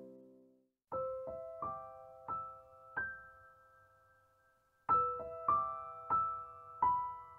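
Background piano music: a slow melody of single struck notes that ring and fade, in two short phrases separated by a pause of about two seconds.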